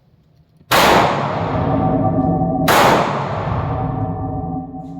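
Two gunshots about two seconds apart, each sudden and loud with a long ringing echo that fades away.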